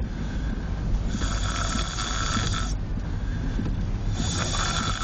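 Very loud snoring from a sleeper: two long snores, about three seconds apart, one starting about a second in and the next near the end.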